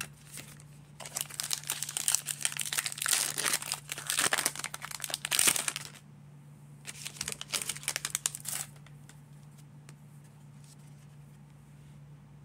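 Foil wrapper of a 2022 Donruss baseball card pack being torn open and crinkled. A long run of crinkling starts about a second in and lasts about five seconds, then a shorter burst comes near the middle.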